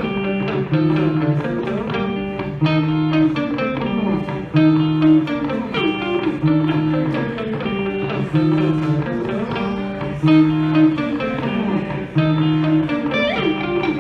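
Guitar music: a plucked guitar figure that repeats about every two seconds, a low note coming back at each repeat.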